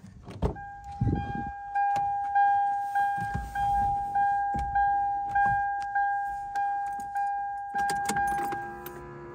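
A 1997 Toyota 4Runner's door-open / key-in-ignition warning chime dinging steadily, about one and a half to two chimes a second, a dozen times. Near the end it stops amid clicks from the key in the ignition, and a steady low hum starts.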